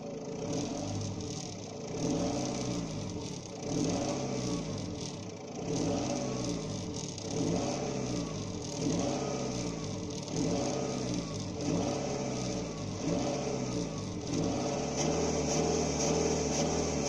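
Citroën Xantia 2.0 HDi four-cylinder common-rail turbodiesel, heard at the exhaust, revved in short throttle blips about every second and a half, the pitch rising and falling each time. Near the end it settles to a steady idle.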